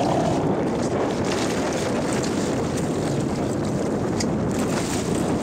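Steady wind noise on the microphone over the rush of water along a fishing boat's hull, an even roar with no clear tone.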